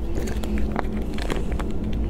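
Plastic food pouch crinkling and crackling with a few sharp clicks as it is handled and pulled open, over a low steady hum.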